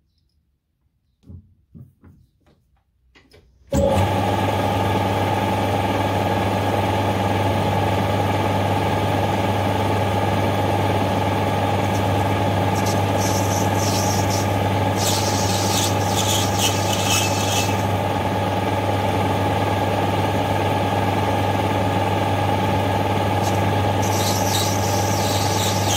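A few light clicks, then a metal lathe starts about four seconds in and runs steadily with a hum. Twice a hiss rises over the hum, about halfway through and again near the end, as the cutting tool cuts the spinning brass bar.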